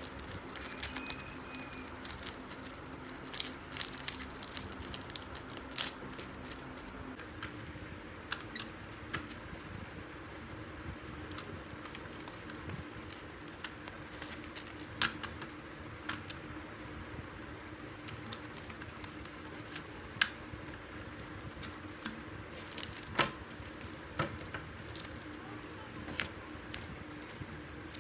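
Sticker sheets in plastic sleeves being handled and cut on a sliding paper trimmer: scattered clicks, taps and crinkles over a faint steady hum.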